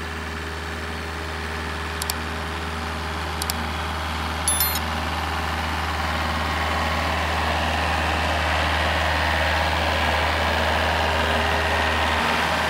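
Monster truck engine sound effect, a steady low rumble that grows slightly louder as the trucks drive across. A few sharp clicks and a short ringing click sound in the first five seconds.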